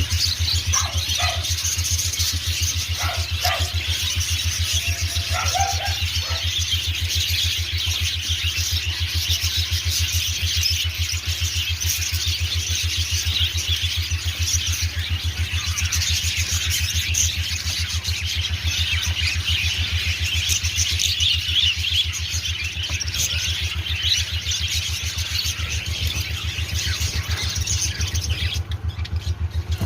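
Many small birds chirping and squealing together without pause, over a steady low hum.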